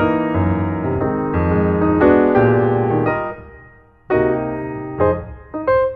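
Background piano music playing chords and a melody; the phrase fades out about three and a half seconds in and a new phrase begins just after four seconds.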